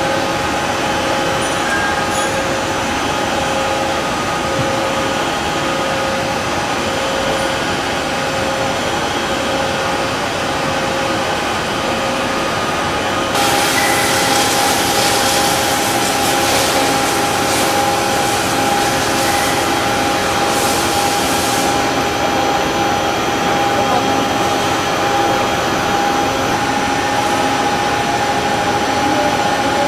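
Large vertical face lathe turning a big metal ring: a steady machine hum with two held whining tones. A hiss joins abruptly about 13 seconds in and fades out again about 22 seconds in.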